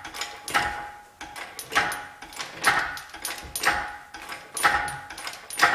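Engine crane being pumped by hand to raise a car engine on its chains: a metallic clank and rattle with each stroke, about once a second.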